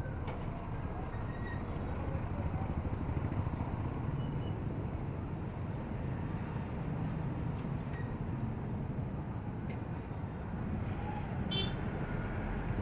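Ride on a Yamaha Aerox 155 scooter through slow city traffic: the scooter's single-cylinder engine running under a steady low rumble of wind and road noise, with other motorbikes and cars around it.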